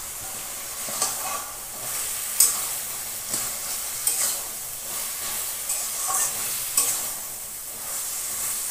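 Taro greens and fried peanuts sizzling in a metal pan while a metal spatula stirs them, with several scrapes and knocks against the pan over a steady frying hiss.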